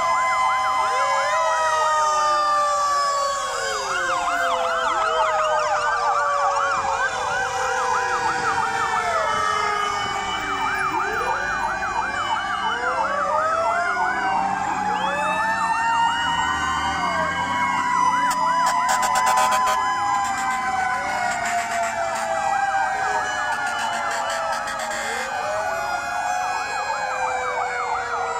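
Many fire-truck sirens sounding at once, overlapping: fast yelping sweeps mixed with slower rising and falling wails, with truck engines running underneath.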